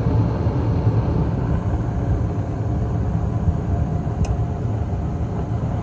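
Gas furnace running, a steady low rumble from the burners and blower, with a light tick about four seconds in.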